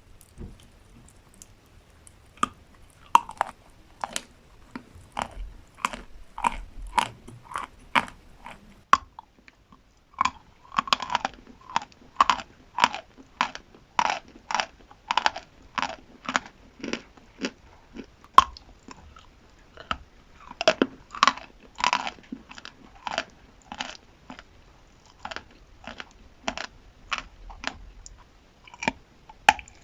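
Close-miked chewing and biting of chalk coated in chalk paste: a long run of crisp crunches, about two a second, with a short pause about nine seconds in before the crunching picks up again.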